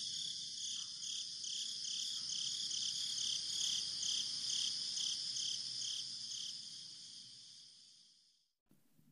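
A high, cricket-like chirping trill that pulses about two and a half times a second over a faint low hiss, fading out about seven seconds in.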